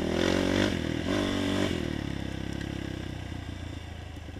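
A 450 quad's single-cylinder four-stroke engine revving up in two quick surges in the first two seconds, then running steadily at lower revs. Freshly tuned, it pulls cleanly without popping at high throttle.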